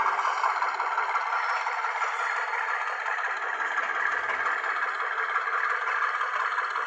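HO scale ABJ4 model railcar with DCC sound running along the track, a steady rattling mechanical noise that grows a little fainter over the first few seconds as it moves away.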